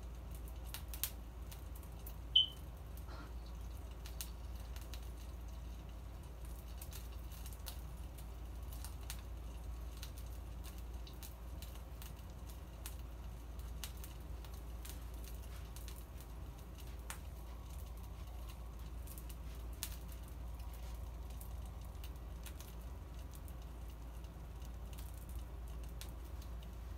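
Faint crackling and ticking of food cooking under the glass lid of an electric countertop grill, over a steady low hum, with one short high chirp about two seconds in.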